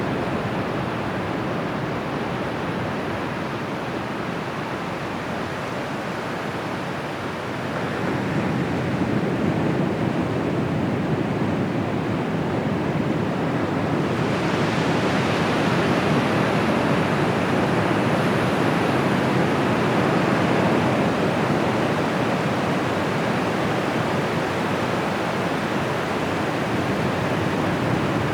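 Ocean surf breaking and washing up a beach: a steady rushing that swells about a quarter of the way in, with a brighter hiss of a breaking wave from about halfway.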